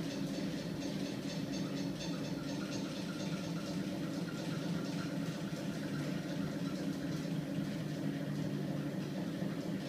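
Home-built magnet crankshaft machine with stacked flywheel discs, driven by a small 24 V electric motor on a 12 V battery, running steadily with a low mechanical hum. A rapid light ticking sits over the hum and is clearest in the first few seconds.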